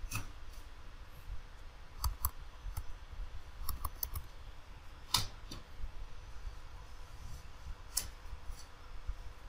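Computer mouse clicks and a few keyboard taps: separate sharp clicks near the start and around two seconds in, a quick run of taps near four seconds, a louder click just past five seconds and another near eight seconds.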